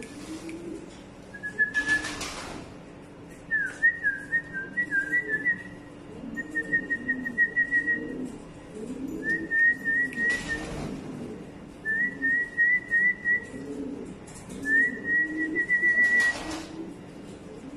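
Pomeranian pouter pigeon cooing over and over in low, rolling calls, while a small bird keeps up short, rapid, high chirping trills about every two seconds. Three brief rushing noises come near the start, in the middle and near the end.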